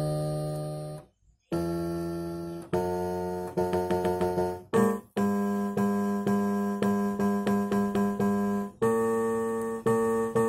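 Electronic keyboard notes playing through the speaker that drives a salt-sprinkled Chladni plate. First come a few held notes with short gaps between them. Then notes are struck repeatedly about three times a second, shaking the salt into a pattern.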